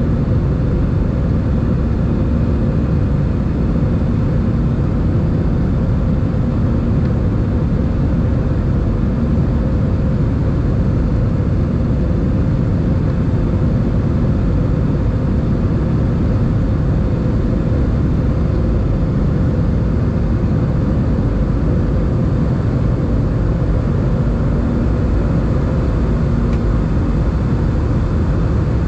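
Steady cabin noise of an Airbus A320 climbing after takeoff: the engines and rushing air are heard through the fuselage as an even low drone, with a faint steady hum in it.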